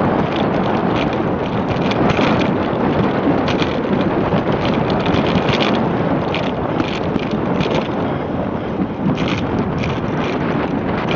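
Wind rushing over the microphone of a camera riding on a moving bicycle, mixed with tyre noise on asphalt and irregular short rattles from the bike.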